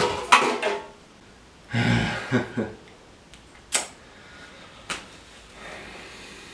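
Empty aluminium drink cans clattering briefly against each other, followed by a short thud and two separate sharp clicks over quiet room tone.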